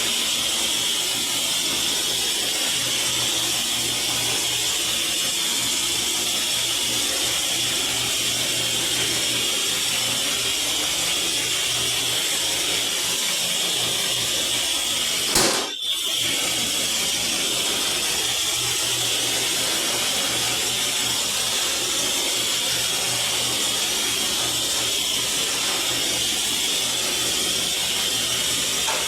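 Power tool motor running steadily with a continuous hissing whine while cutting MDF. A single sharp click comes about halfway through.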